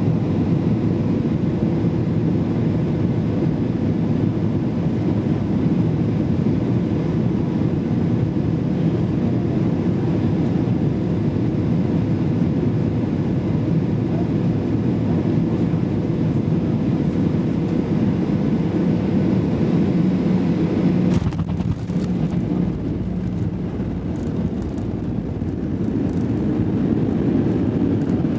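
Cabin noise of a Boeing 737-800 on final approach: steady roar of its CFM56 engines and airflow with a steady hum. About 21 s in, a brief knock as the main wheels touch down, then a low runway rumble, and the engine roar builds again near the end.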